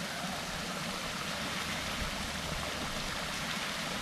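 Steady rushing of running water, over a low uneven rumble.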